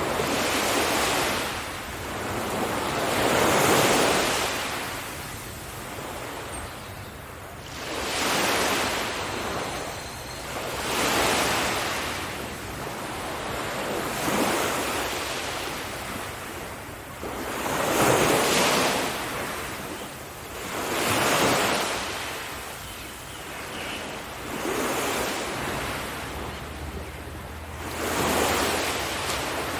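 Ocean waves breaking on a beach, surging and fading in a slow rhythm of one wave every three to four seconds, with wind on the microphone.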